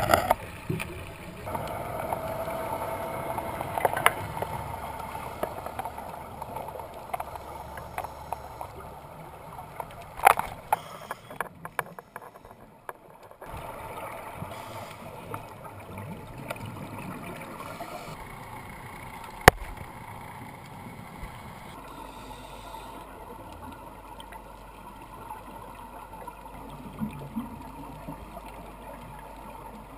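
Underwater sound picked up by a diving camera in its housing: gurgling bubbles from a scuba diver's exhalations over a steady watery hum, with scattered clicks and a few abrupt changes where the clips change.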